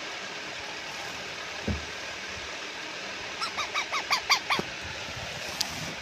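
Baby parrot giving a quick run of about eight short squawks in the middle, over a steady hiss. A single dull thump comes earlier, and a click near the end.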